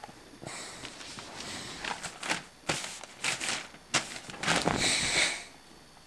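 Newspaper rustling and crinkling as it is spread over a pillow and a head settles onto it, in a series of short, uneven rustles with brief pauses.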